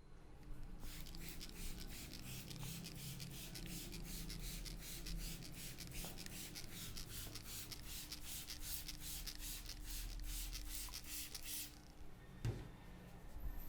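Hands rubbing briskly through hair and over the scalp, a fast rhythmic rustle of about four strokes a second that stops near the end, followed by a single soft thump.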